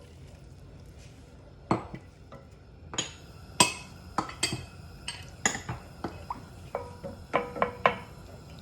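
Kitchen utensils clinking and knocking against cookware: about a dozen sharp, irregular clinks with a short ring, several in quick succession near the end.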